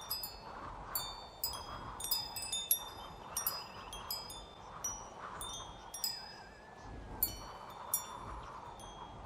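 Wind chime ringing in the breeze: many irregular, high, clear strikes that come in clusters, each tone ringing on briefly.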